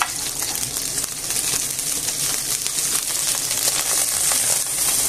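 Hot olive oil sizzling in a non-stick frying pan: a steady hiss full of small crackles, the oil spattering ('well jumpy').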